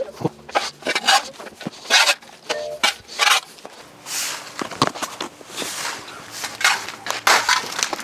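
Irregular scraping, rustling and knocking of sawdust and wood scraps being cleared up by hand, in short uneven bursts.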